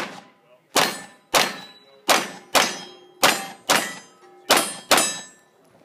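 A pistol fired in a fast string of about eight shots, roughly two a second, each crack followed by the short ring of a steel target plate being hit.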